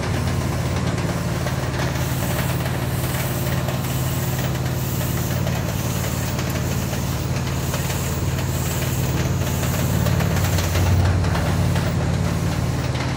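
DTF printer's powder-shaker and curing-dryer unit running: a steady machine hum of its motors and fans over an even whir, swelling a little louder about ten seconds in.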